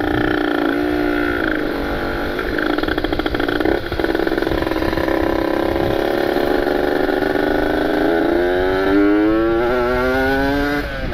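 Kawasaki Ninja RR's ported 150 cc two-stroke single running under way and loud, a week into its break-in. It holds a fairly steady pitch with a brief dip about four seconds in, then revs up with rising pitch near the end, over wind rushing on the microphone.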